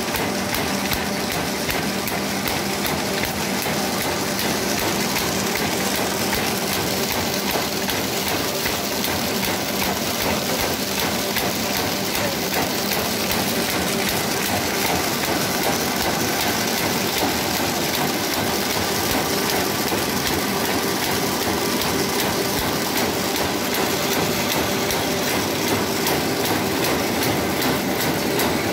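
1976 Windmöller & Hölscher Matador S flat/satchel paper bag making machine running in production, the paper web feeding through it: a steady, fast mechanical clatter over a constant hum.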